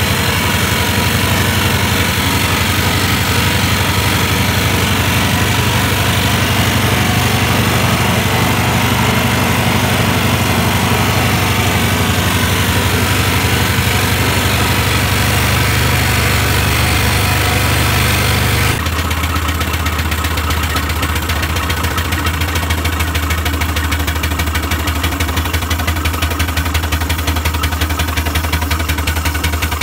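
6-inch scale Samson traction engine running steadily along a road, a rapid even mechanical beat. The sound changes abruptly about two-thirds of the way through.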